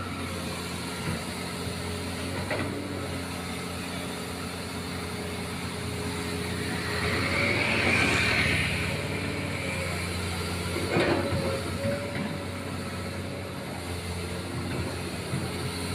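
Doosan excavator's diesel engine running steadily while the machine works. The engine grows louder for a couple of seconds about halfway through, and there is a single clank about eleven seconds in.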